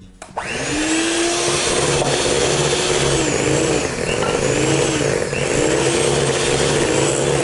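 Electric hand mixer switched on and beating cake batter in a glass bowl. Its motor whirs up to speed about a third of a second in, then runs steadily, the whine dipping now and then as the beaters meet the thick batter.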